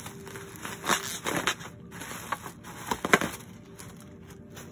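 Plastic bubble wrap crinkling and rustling as it is pulled off an electric guitar's headstock, in a handful of crackly rustles, the loudest about three seconds in.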